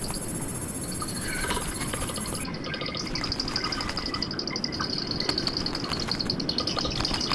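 Natural ambience: a steady, high, rapidly pulsing insect-like trill, with a second, higher trill during the first couple of seconds and scattered short bird chirps.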